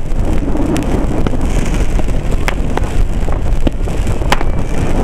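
Fireworks being fired close by: several sharp cracks and pops of launching and bursting shells over a steady low rushing noise.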